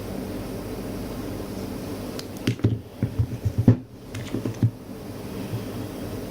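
A brushless RC-car motor (GoolRC S2845 3900KV on a 35A ESC) stuttering in a burst of uneven low pulses and clicks for about two seconds in the middle, over a steady hiss and hum. This jerky stutter is cogging, which the owner blames on a faulty motor or ESC.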